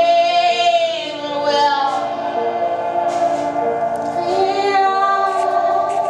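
A woman sings long, wavering notes over piano accompaniment.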